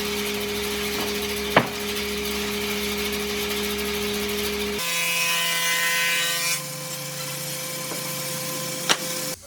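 Electric power tool running steadily while working wood, with a sharp knock about one and a half seconds in and another near the end. Its hum changes abruptly to a higher tone about halfway through, with a brief whine on top for a second or two.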